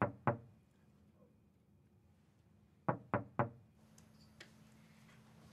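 Knocking on a door: two knocks at the start, then three quick knocks about three seconds in.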